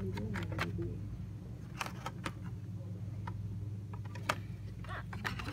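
Hot Wheels blister-card packages clicking and rustling as they are flipped through by hand on the store pegs, a scatter of short plastic-and-cardboard clicks over a steady low hum.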